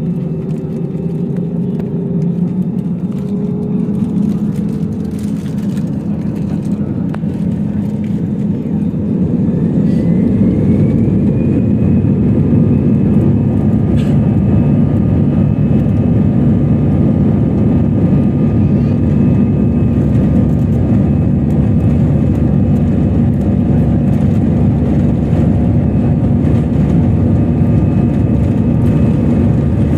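Jet airliner engine noise heard inside the cabin as the engines spool up for takeoff: a whine rises in pitch about ten seconds in while the engine noise grows louder, then both hold steady at takeoff thrust.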